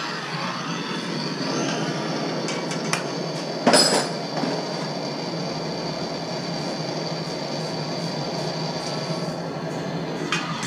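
Hand-held soldering torch on a yellow fuel cylinder burning steadily, a continuous flame hiss as it heats a copper fitting on baseboard heating pipe to sweat a joint, with one brief louder burst about four seconds in.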